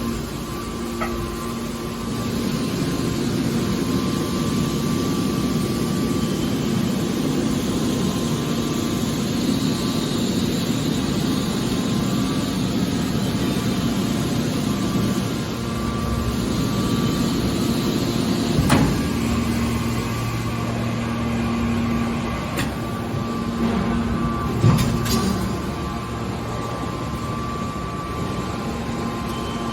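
Hydraulic metal baler running with a steady hum from its pump and motor, and two sharp knocks about two-thirds of the way through, a few seconds apart.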